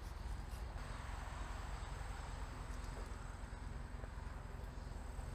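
Steady high chirring of insects in the grass, with a low rumble underneath.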